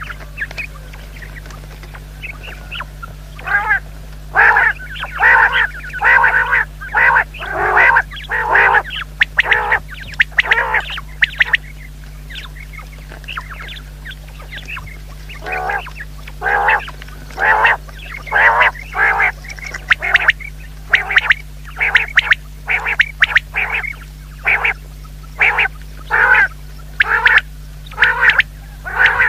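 Common quail calling: a long series of short, quack-like calls, one or two a second, that breaks off for a few seconds midway and then starts again.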